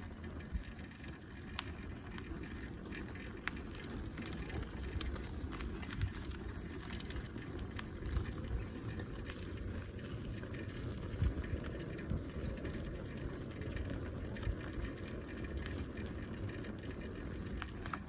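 Bicycle rolling along a path: a steady low rumble with many small scattered clicks and rattles.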